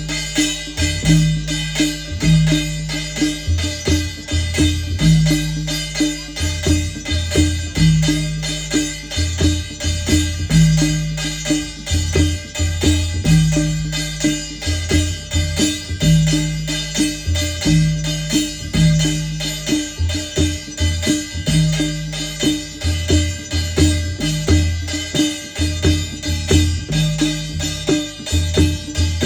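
Adivasi percussion ensemble: mandal (madal) and dhulgya drums with a struck thali (metal plate), playing a fast, even rhythm of dense strikes over deep drum tones, the plate adding a ringing clatter.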